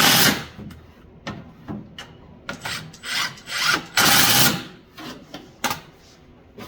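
Hand ratchet driving in the mounting bolts of an ATV starter motor: several short rasping strokes, the loudest at the very start and about four seconds in, with a sharp click near the end.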